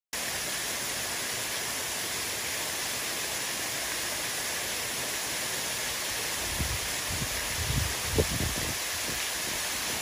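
Steady hiss of a curtain of thin streams of warm spring water falling from a moss-covered rock ledge and splashing below. From about six and a half seconds, irregular low rumbles of wind buffeting the microphone come in over it.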